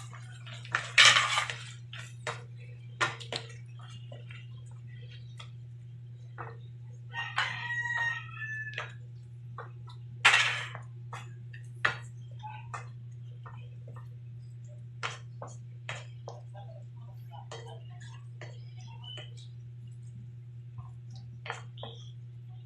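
Cooking utensil clicking and scraping in a frying pan as beaten egg is stirred into the tuna mixture, over a steady low hum. A rooster crows once in the background about seven seconds in.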